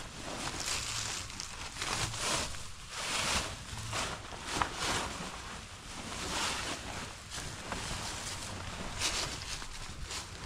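Fabric of a pop-up tent and its cloth wrapping rustling and swishing as it is unwrapped and sprung open by hand, in a series of irregular swishes, over a low steady rumble.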